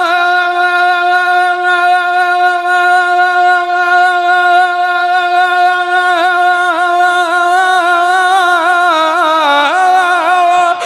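A man's voice holding one long sung note in a naat recitation, drawn out for about eleven seconds on a single vowel. The pitch stays steady with a slight waver, then bends in small ornamental turns near the end.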